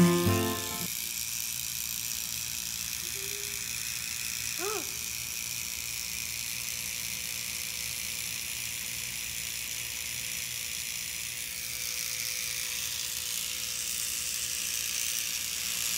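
Electric toothbrush running with a steady high buzz. About five seconds in there is a single short call that rises and falls.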